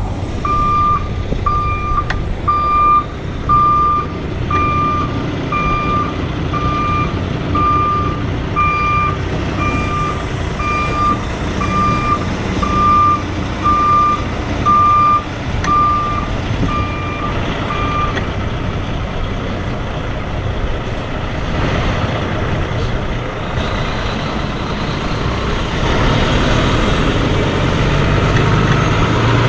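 Reversing alarm on a Kenworth tractor-trailer, beeping evenly about three times every two seconds over the truck's diesel engine running. The beeping stops about two-thirds of the way through, and the engine and road noise grow louder near the end.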